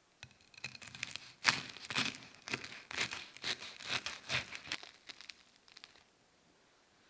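A knife cutting through the crisp breadcrumb crust of a fried chocolate-filled donut, which is then pulled apart: a dense run of crunching crackles that thins out and stops about six seconds in.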